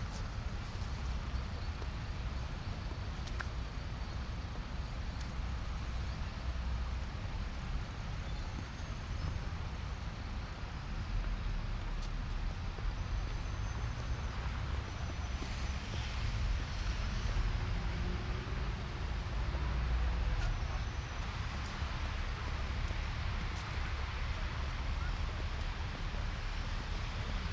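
City street ambience: steady traffic noise from passing cars with a low rumble, during a snowstorm.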